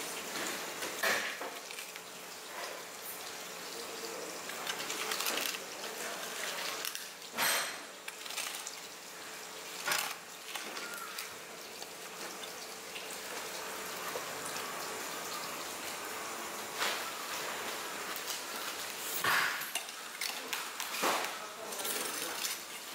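Long knife working through a large tuna on a wooden table: scraping cuts along the fish, with a few sharp knocks and clicks of the blade scattered through, over a steady hiss of background noise.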